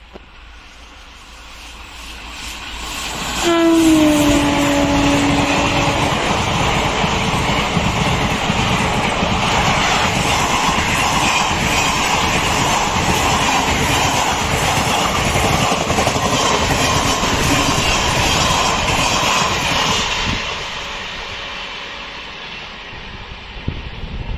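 Indian Railways WAP-4 electric locomotive and its express train passing close by. The locomotive's horn sounds for about two and a half seconds and drops in pitch as it goes past. The coaches follow with loud, steady wheel clatter over the rail joints, which fades away near the end.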